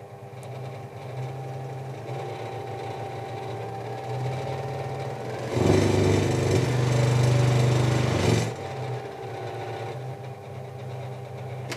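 Ryobi scroll saw running with no workpiece, its motor and reciprocating blade making a steady mechanical hum. About halfway through it grows clearly louder and busier for roughly three seconds as the speed is turned up, then drops back to the lower level.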